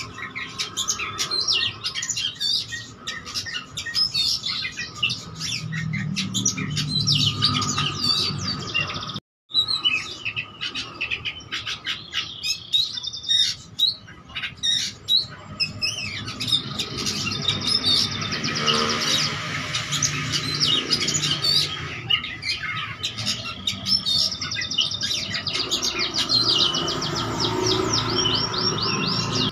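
Oriental magpie-robin singing a long, varied song of quick chirps, whistles and rapid trills, packed with mimicked calls. The song breaks off very briefly about nine seconds in.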